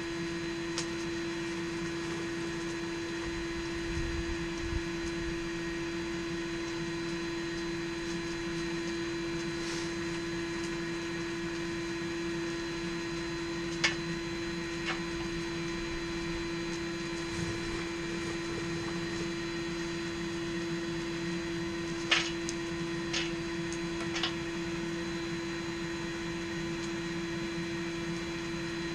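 Electric blower running steadily with a constant hum, feeding air to a blacksmith's forge. A few short, light metallic clinks come about halfway through and a few more some eight seconds later.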